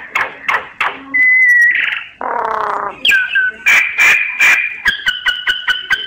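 Myna singing: a quick, varied run of whistles, clicks and a harsh, grating note. Near the end it holds a steady whistle over a fast train of clicks.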